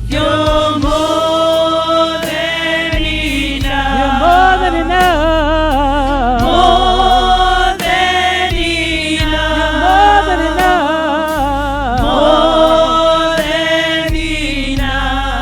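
Gospel worship choir singing with band accompaniment: long held notes with heavy vibrato and melodic runs over steady bass notes.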